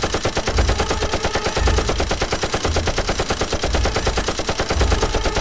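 Rapid, unbroken automatic gunfire, a machine-gun sound effect with shots coming many times a second.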